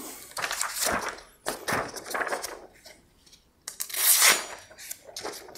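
A sheet of paper rustling as it is handled, then a knife freshly sharpened on a brick slicing through the paper about four seconds in, testing the edge. The slicing is the loudest and crispest burst.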